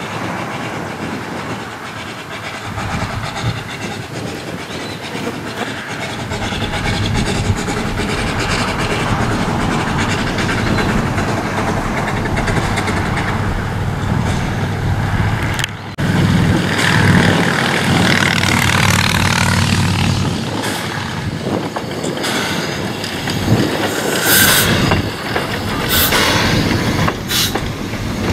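Coffee Pot steam railcar (Steam Motor Coach No. 1) running along the track, getting louder as it comes near and passes. A few sharp clicks near the end come from its wheels crossing rail joints.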